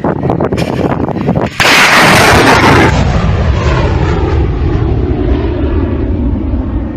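Buk-M1 surface-to-air missile launching. A sudden loud rushing blast of the rocket motor about a second and a half in lasts just over a second, then gives way to a long rumble that slowly fades.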